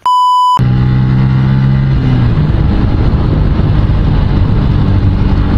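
A short high-pitched beep lasting about half a second, then a motorcycle engine running steadily. Its note shifts a little about two seconds in.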